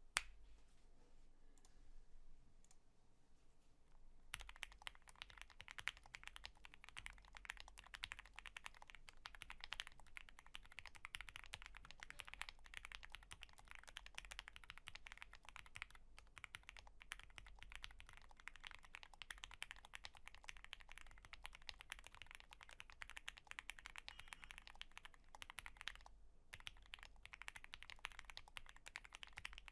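Fast typing on a Spring mechanical keyboard with lubed Lavender switches (Krytox 205g0), a POM plate and GMK keycaps, a dense run of quiet key clicks. One lone click comes right at the start, the steady typing begins about four seconds in, and there is a brief pause near the end.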